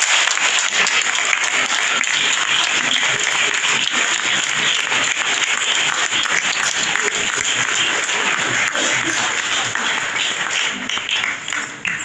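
Audience applauding steadily, a dense continuous clapping.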